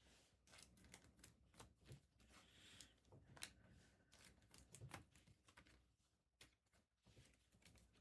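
Faint handling of trading cards and packs: light clicks, taps and short rustles at an irregular pace.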